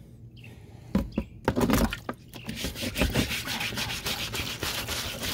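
Scrub brush scrubbing a rusty steel chainsaw bar under white vinegar in a plastic tub, in quick back-and-forth strokes that start about halfway through. A few knocks come about a second in.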